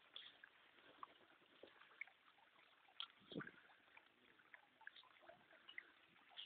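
Near silence: faint, scattered short ticks and a few brief high chirps over a quiet hiss, with one slightly louder click about three seconds in.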